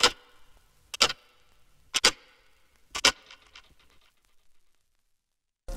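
Four sharp ticks, evenly spaced a second apart, each a quick double click with a short ring after it. Music with a beat cuts in right at the end.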